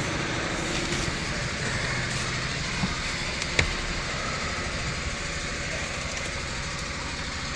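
Steady hum of an idling engine with a faint low drone, and a single sharp click about three and a half seconds in.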